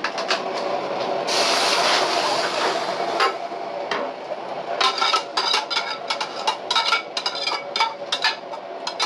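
Beef brisket and its braising liquid poured from a steel pot into a hot iron wok: a loud sizzling hiss starts about a second in and lasts about two seconds, then a run of metal clanks and knocks as the pot is tipped and knocked against the wok to empty it.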